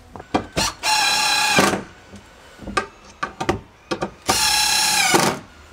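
Cordless drill running in two steady bursts of about a second each, its pitch dropping slightly as the trigger is let go, with short clicks and knocks between the runs.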